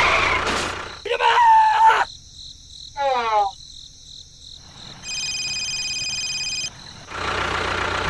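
A string of short sound effects: a squeaky voice-like call, a quick falling run of chirps, then a steady high electronic tone lasting about a second and a half. An engine-like drone runs at the start and returns near the end.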